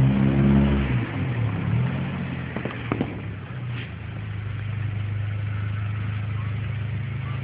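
A car engine running close by, loudest in the first second or so with its pitch falling slightly, then settling to a steady low engine hum. A couple of short sharp clicks come about three seconds in.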